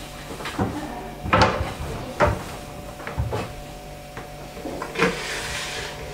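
Kitchen handling sounds: a series of sharp knocks and bumps of things being moved and set down around a kitchen counter and cupboards. Near the end comes a soft steady hiss.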